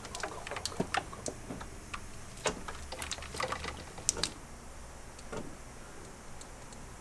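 Sparse, irregular light metallic clicks and taps as a DOHC cam carrier with its cam gears is handled and pressed down onto the cylinder head by hand. It won't seat because it is resting on the lifters.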